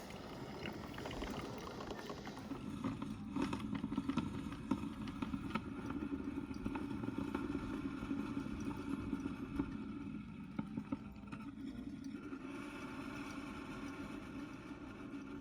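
DeLonghi ICM14011J drip coffee maker brewing: a steady low hum with irregular pops and crackles over it.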